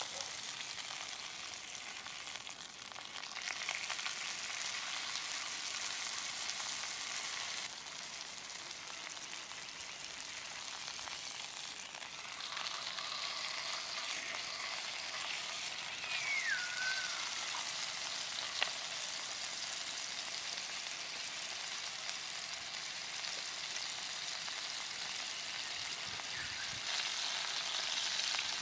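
Beef steak frying in hot fat in a small nonstick pan: a steady sizzle that swells and eases as the steak is turned and pressed with steel tongs. A short falling whistle sounds about halfway through, and a sharp click a little after it.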